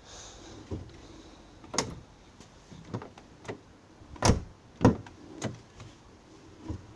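Renault Logan car door being swung open, knocking sharply several times, the two loudest knocks close together about halfway through. It is the knock the door makes on opening, which the owner ties to the old door check (limiter).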